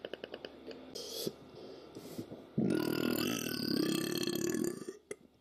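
A person letting out a long, loud burp about two and a half seconds in, lasting about two seconds.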